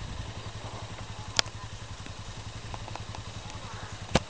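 Steady low engine hum with a fast, even throb. Two sharp mechanical clicks from a digital camera taking pictures stand out, about a second and a half in and again near the end.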